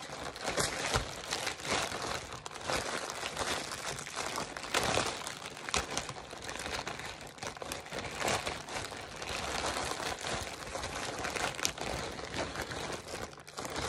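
Plastic parcel bag and packaging crinkling and rustling continuously as they are handled and unpacked, full of sharp little crackles.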